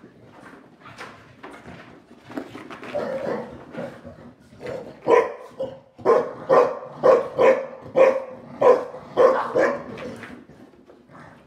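Dogs barking in rough play, a Shar Pei and a Boston Terrier romping together: scattered softer barks at first, then a quick run of about nine loud barks, roughly two a second, from about six seconds in.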